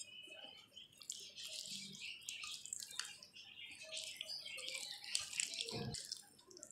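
Faint, irregular wet squelching and crackling of a hand kneading spice-marinated chicken pieces in a bowl, starting about a second in, with a dull knock near the end.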